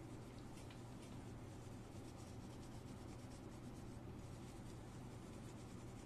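Cloth wiping over a laptop's copper heat sink and heat pipes: faint, irregular rubbing strokes as old thermal paste is cleaned off, over a steady low hum.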